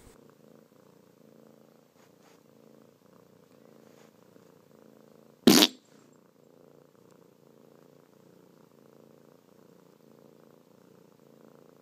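Domestic tabby cat purring steadily and softly close to the microphone. About halfway through, one short, loud burst of noise cuts through.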